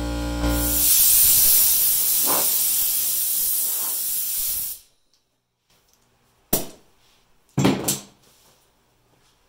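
Primer being sprayed onto the fiberglass body: a steady hiss of spray that cuts off abruptly almost five seconds in. Two sharp knocks follow about a second apart.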